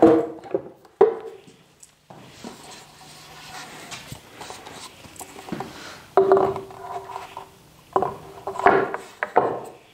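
Wooden knocks and clunks as a plywood table saw sled and then its long wooden fence extension are hung on wall hangers. There are a couple of sharp knocks at the start, a quieter stretch of shuffling, and a cluster of ringing clunks near the end.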